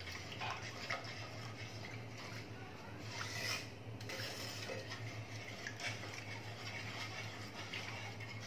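Wooden spatula stirring thin sugar syrup in a granite-coated non-stick pan: faint sloshing of liquid and light scrapes against the pan, over a steady low hum.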